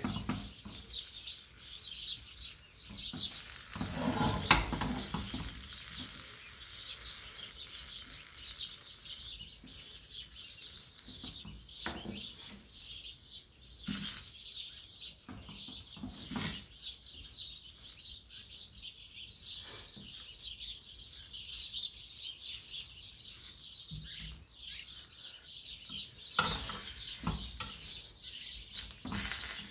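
Tortilla wrap frying in a nonstick frying pan: a steady fine crackling sizzle, with a few scrapes and knocks of a spatula against the pan, more of them near the end as the wrap is turned over.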